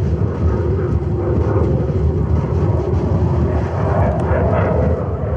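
Strong wind buffeting the camera's microphone on an exposed mountain summit: a steady, loud, low rumble.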